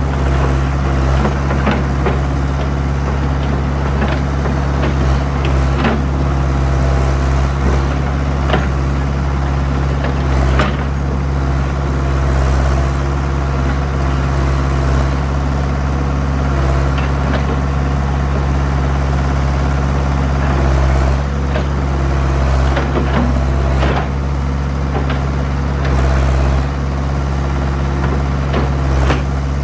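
Old backhoe's engine running steadily, with scattered sharp knocks through it, the clearest about ten seconds in.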